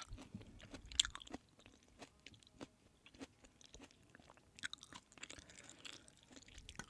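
Close-up chewing of a mouthful of food: many small, irregular mouth clicks, the sharpest about a second in.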